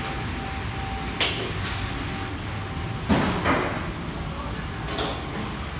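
Kitchen room noise: a steady low hum with a few sharp knocks and clatters, the loudest about three seconds in.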